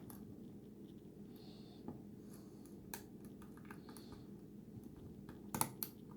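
Lock pick and tension wrench working the security pins of a Schlage pin-tumbler lock: faint scattered clicks, with a louder cluster of clicks near the end, over a faint steady hum.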